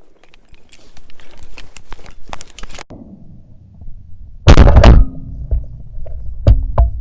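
Small clicks and rustling, then a single loud blast-like thump about four and a half seconds in, followed by low rumbling and another sharp knock near the end.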